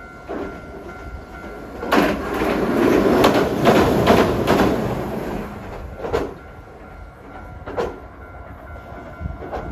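A Hiroshima Electric Railway 3950-series tram crossing a steel girder bridge, its wheels clacking over the rail joints. The passing noise is loudest from about two to five seconds in, and two more separate clacks follow as the rear bogies cross.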